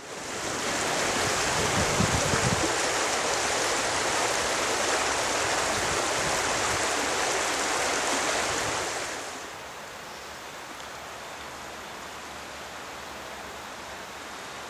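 Steady rushing noise, loud for about nine seconds, then dropping to a quieter, even hiss.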